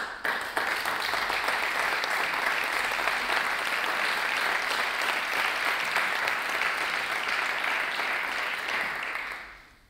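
Audience applauding: many hands clapping in a steady, dense patter that starts all at once and dies away over the last second.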